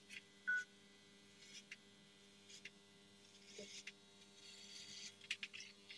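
Faint steady electrical hum, with a few soft scrapes and light clicks and one brief high beep about half a second in.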